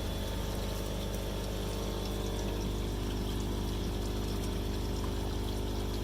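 Water pouring and draining steadily out of a duck pond tank into aquaponics grow beds, with a steady hum underneath.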